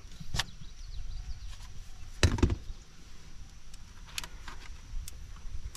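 A few sharp clicks and one louder knock about two seconds in, from handling a trail camera's SD card and a laptop, over a low steady rumble.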